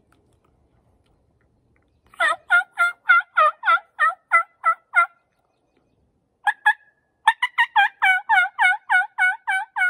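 Diaphragm (mouth) turkey call blown to imitate a hen: runs of quick notes that each break from high to low, about a dozen, a short pause, then a longer, faster run.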